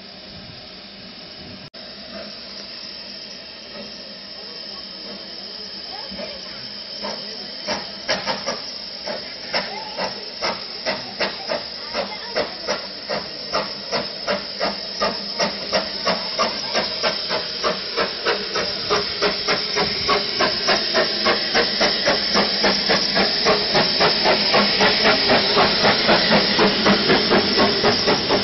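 Narrow-gauge steam locomotive working away from a stand: a steady hiss of steam, then exhaust chuffs that begin slowly several seconds in and quicken and grow louder as the train gathers speed.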